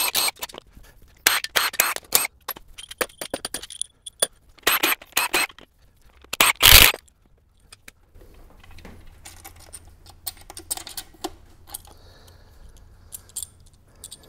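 Ratchet wrench clicking in quick bursts of about a second as bolts are worked loose on the bottom end of a Toyota 2GR-FE V6 being torn down. A short loud metallic clatter comes about six and a half seconds in, followed by quieter clinks and scraping of parts being handled over a low hum.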